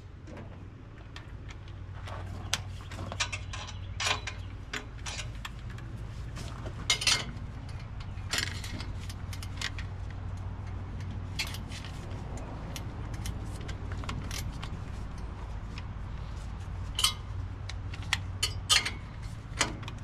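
Hand tools clinking and clanking against metal, in irregular sharp knocks, while working on the valve covers of a Detroit Diesel 8V92 engine, over a steady low hum.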